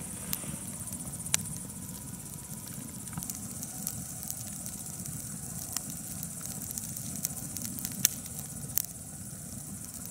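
Wood campfire burning, with scattered sharp crackles and pops, over a steady high-pitched chirring of insects.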